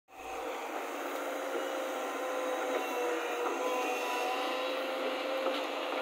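JCB JS140 excavator's diesel engine running steadily with a faint steady hum while the machine swings a bucket of mud over a dump truck. The sound is thin, without any deep rumble.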